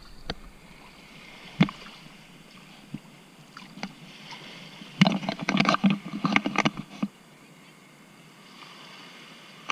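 Water splashing at sea: one brief splash about one and a half seconds in, then a quick run of splashes between about five and seven seconds in.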